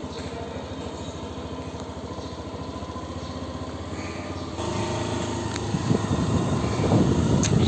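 Small vehicle engine idling with an even, rapid pulse, then revving about halfway through and getting louder and rougher as the vehicle pulls away.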